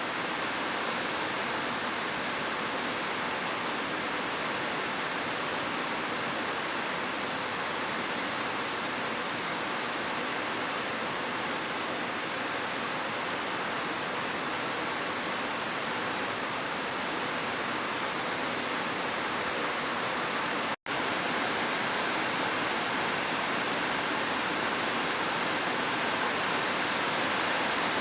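Heavy rain falling as a steady, even hiss, with a split-second dropout to silence about three-quarters of the way through.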